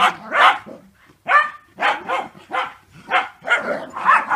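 A dog barking in a rapid run of short, sharp barks, about two to three a second, with a brief pause about a second in: excited play barking while chasing another dog.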